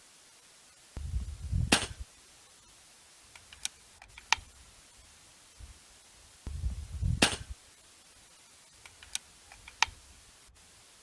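Two shots from an Air Arms S510 FAC .22 pre-charged air rifle, about five and a half seconds apart, each a short low thud ending in a sharp crack. Each shot is followed by two lighter sharp clicks.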